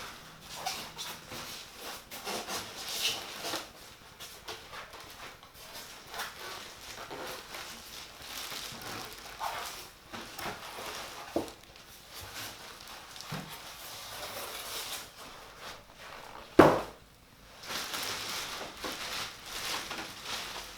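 A large cardboard box being worked open by hand: scattered rustling, scraping and small knocks of cardboard and packing, with one loud thump about two-thirds of the way through.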